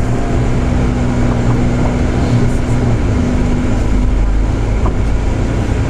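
Tour bus engine and road noise heard from inside the cabin: a steady low drone with a held hum that shifts slightly in pitch about three seconds in.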